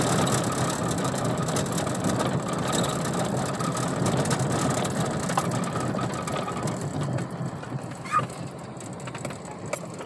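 Vehicle driving over a stone-paved road: a steady rumble of tyres on the paving stones with constant small rattles, easing off somewhat in the last few seconds.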